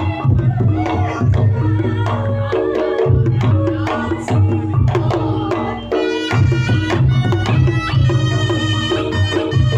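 Reog Ponorogo gamelan music played loud through a sound system: hand drumming over a heavy low pulse and sustained gong-like tones. A bright, reedy wind melody comes in about six seconds in.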